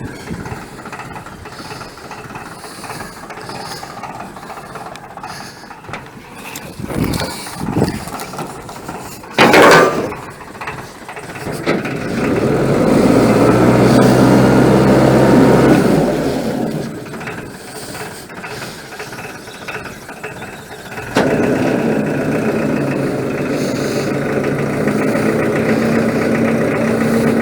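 A boat engine runs, louder for a few seconds midway and settling into a steady hum in the last few seconds. There is a short loud burst of noise about nine seconds in.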